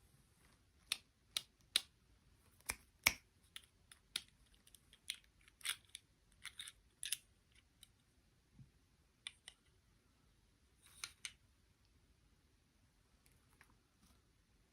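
Irregular sharp clicks and snips from small objects being handled or cut, about twenty in all. They come in a quick cluster over the first half, again near the end, and a few faint ones trail off.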